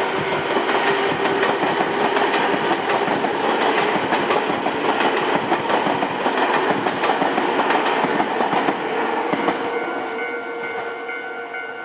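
A Nankai Koya Line train passing over a level crossing, its wheels clattering over the rail joints, while the crossing's warning bell keeps ringing. The train noise dies away near the end, leaving the bell.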